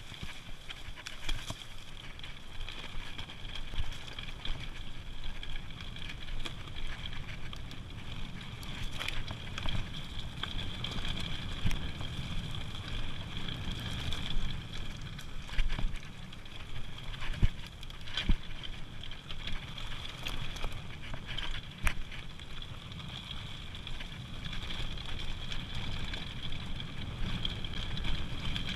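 Mountain bike riding fast over a dirt forest trail: a steady low rumble from the tyres and riding, broken by frequent sharp rattles and knocks as the bike hits bumps.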